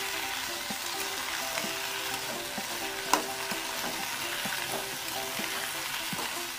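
Cut okra sizzling in hot oil in a metal kadai while a metal spatula stirs it, with one sharp clink of the spatula on the pan about three seconds in.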